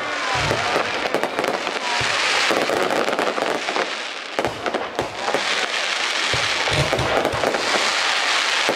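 Fireworks display going off: a dense, continuous crackle of many small bursts, with low thuds every second or two.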